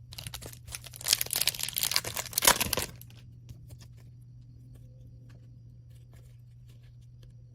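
A foil Upper Deck hockey card pack wrapper being torn open and crinkled for about two seconds, followed by a few faint light ticks.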